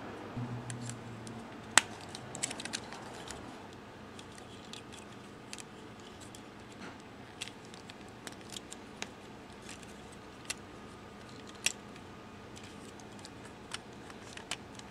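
Plastic parts of a 1/144 High Grade Gunpla model kit clicking and snapping as hands fit them together: scattered sharp clicks at irregular intervals, the loudest about two seconds in.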